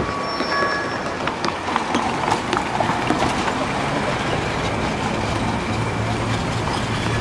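Metro Blue Line light-rail train running past over the crossing, a steady rumble with a run of sharp wheel clicks over the track about a second in.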